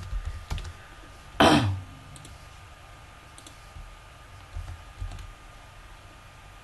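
Computer mouse and keyboard clicks as text is copied and pasted into an editor, a few sharp ones near the start and fainter scattered ones later. About a second and a half in comes the loudest sound, a short cough-like throat noise.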